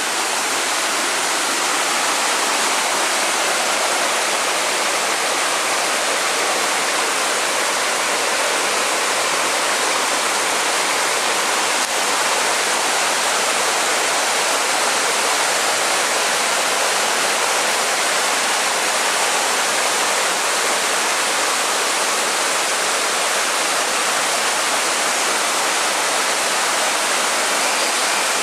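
Rainforest waterfall crashing steadily onto rocks, a constant loud rush of falling water.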